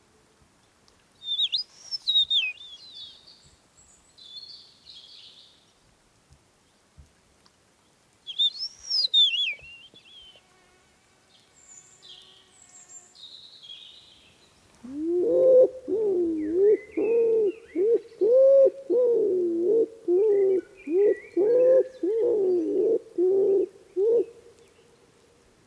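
Small birds give high chirping calls twice, then a loud series of low, wavering hoot-like calls starts about midway, roughly one and a half calls a second, over a steady tone that rings on after they stop.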